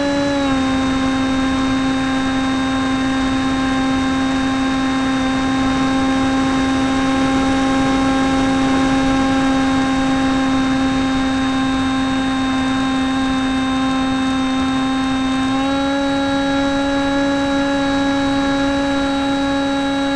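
Model airplane's motor and propeller running steadily in flight, picked up by a camera mounted on the plane: a steady whine that drops slightly in pitch just after the start and steps back up near the end, over a constant hiss.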